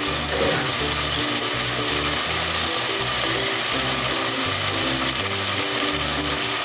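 Keema (minced meat in masala) sizzling steadily in a pot on the stove, under background music with a repeating low bass line.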